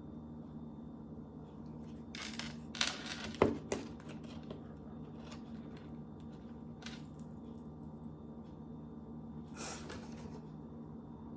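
Small hard pieces of a gingerbread kit and its packaging being handled: a few short clattering, crinkling noises about two to four seconds in, and another near the end, over a steady low hum.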